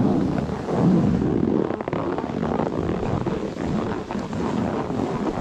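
Wind buffeting an action camera's microphone while snowboarding downhill, a steady gusting rumble.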